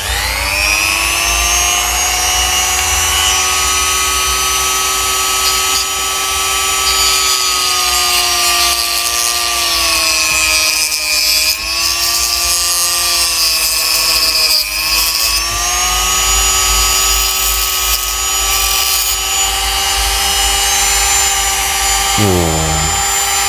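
Ryu RDG 3.2 mini die grinder switched on, spinning up to a steady high whine as its small disc grinds and trims the edge of a plastic part. The pitch sags for a few seconds in the middle while the disc is pressed into the plastic, then recovers.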